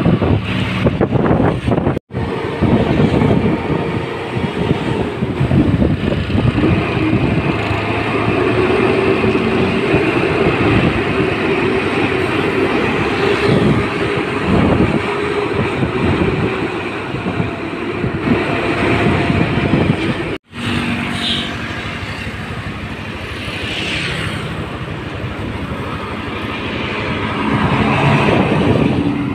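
Diesel engine of an American conventional truck running under load on the road, mixed with road and wind noise. The sound drops out briefly twice, about 2 seconds in and again about two-thirds of the way through.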